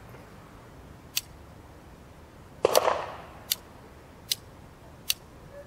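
Sharp metallic clicks of an 1860 Colt Army percussion revolver's action as its cylinder is turned by hand, about one click every second, with one louder clattering handling noise about halfway through.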